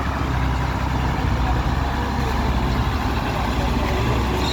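Heavy vehicle traffic, with large truck and bus engines running at low speed in a steady low drone.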